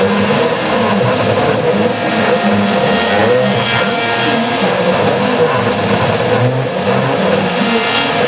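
Hitachi router spindle on a home-built Joe's 2006 CNC machine running steadily while its V-bit carves into wood, with a high steady whine. Under it, the stepper motors driving the axes give a lower whine that rises and falls in pitch as the cutter changes direction.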